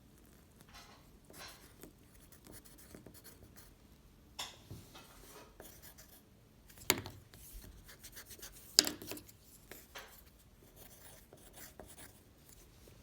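Edible imitation tissue paper rustling, crinkling and being chewed, with sharp crisp crunches about four and a half seconds in and two louder ones near seven and nine seconds in.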